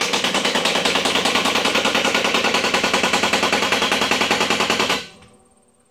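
Heavy-duty impact wrench hammering a mower blade bolt tight, set to its lowest setting of about 100 foot-pounds. It runs as a rapid, steady rattle of blows, then stops abruptly about five seconds in once the bolt is seated.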